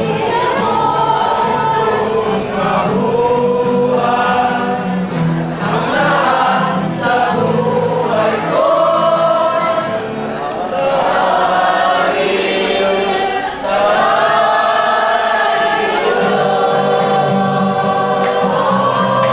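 A group of men and women singing a song together in chorus, reading from song sheets, with an acoustic guitar strummed along.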